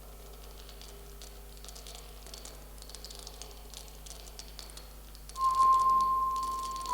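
Texture Mozaik Kontakt instrument playing an experimental texture: a faint crackling of scattered clicks, then about five seconds in a loud, high, pure electronic tone comes in and slowly fades.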